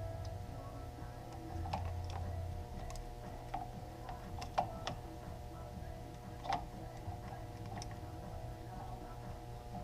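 Irregular small clicks and taps of throttle-tube and control-box parts being handled and fitted on a motorcycle handlebar, over a steady background of tones.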